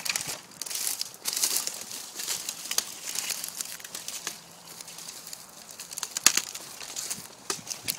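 Irregular rustling and crackling with many small clicks, and one sharp knock about six seconds in.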